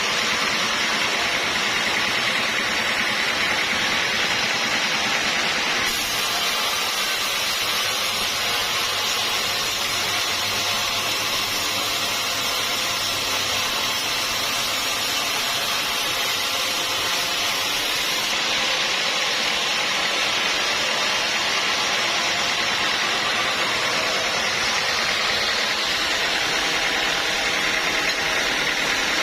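Sawmill machinery running steadily: the engine and blade of a bandsaw mill at work on a log. The high hiss changes abruptly twice, about 6 and 18 seconds in.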